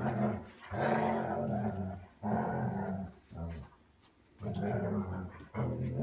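Dogs growling as they scuffle: low, drawn-out growls in about four bouts of a second or so, with short gaps between them.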